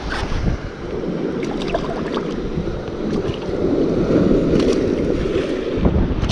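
Surf washing over a rocky shore, with wind buffeting the microphone; the noise swells louder about halfway through, and a few faint ticks sound over it.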